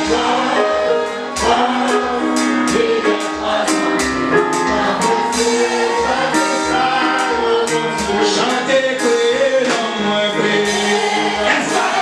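Live gospel worship music: a man singing into a microphone over a band with a steady drum beat, played through loudspeakers.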